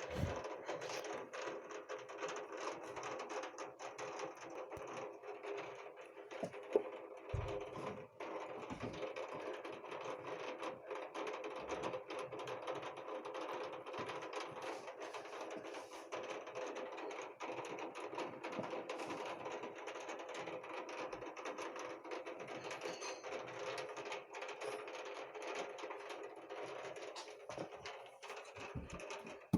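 Heavy rain falling steadily: a dense patter of drops over a continuous hiss. A single louder knock comes about seven seconds in.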